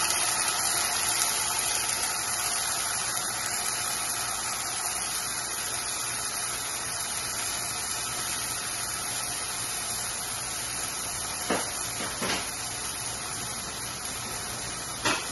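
Crushed tomato sizzling in hot oil in a pan, a steady hiss that slowly dies down, with a few short clicks near the end.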